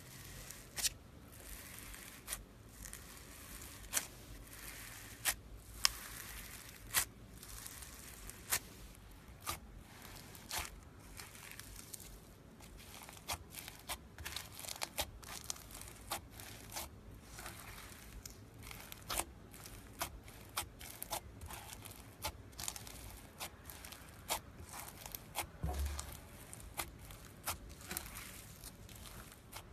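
Crunchy foam-bead slime (floam) being pressed and squeezed by hand, the beads giving sharp, irregular crackles and pops, sparse at first and coming several a second from about halfway through.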